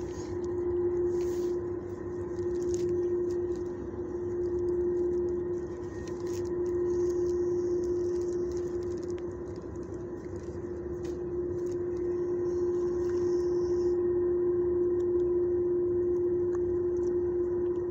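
A steady machine hum holding one pitch, over a low rumbling noise that swells and fades every couple of seconds.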